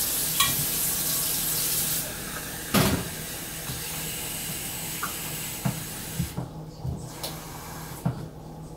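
Kitchen tap running into the sink, the flow easing about two seconds in, with a sharp knock near three seconds. The water shuts off a little past the middle, followed by a few light knocks and clicks.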